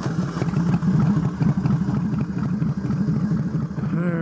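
Motorcycle engine running at low revs with an uneven pulsing beat, just after being started.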